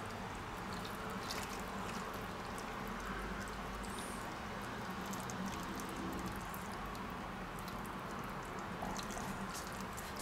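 Thin stream of broth trickling and dripping steadily from a steel bowl into a Römertopf clay baker packed with meat and vegetables.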